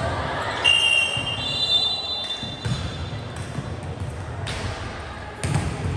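Sports-hall volleyball sounds: a long, steady whistle blows about a second in, and a few scattered ball bounces or thuds hit the hard court floor.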